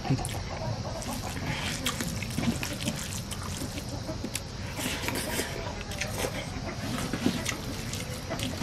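Close-up eating sounds of rice being mixed by hand with curry on a banana leaf: wet squishing with irregular sharp clicks and rustles.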